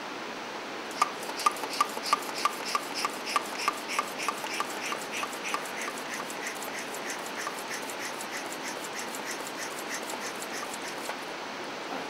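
Small hand-held bicycle pump inflating an inner tube: rapid, even strokes, about three a second, each with a short squeaky hiss. They start about a second in, are loudest at first, grow gradually fainter and stop shortly before the end.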